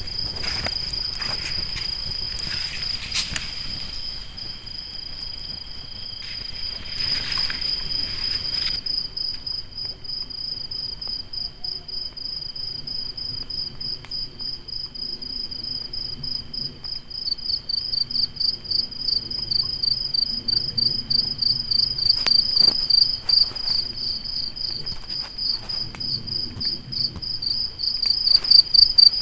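Crickets trilling steadily in a high continuous chorus that turns into a louder, pulsing trill about halfway through. A few faint crackles, typical of a campfire, sound in the first third.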